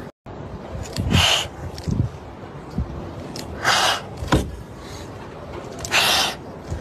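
Two kittens hissing in defence: three short, sharp hisses about two and a half seconds apart, with a few soft low thumps between, the sound of frightened kittens warning off a threat.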